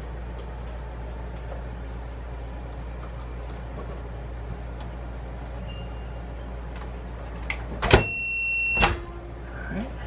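A digital multimeter's continuity beeper gives one steady, high beep lasting just under a second, with a click as it starts and another as it stops. The beep shows that a microwave door switch is closing its contacts. A low steady hum runs underneath.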